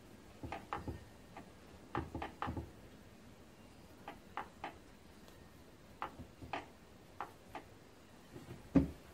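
Scattered light metallic clicks and knocks from parts and hardware being handled at a milling machine vise, some in quick pairs, with one heavier knock near the end.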